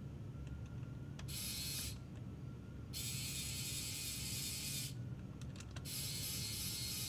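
Small electric motor and plastic gear train of a Tamiya 1/35 Panzer IV RC turret unit running in three short spells, a high-pitched whir that starts and stops, with a few light clicks in between.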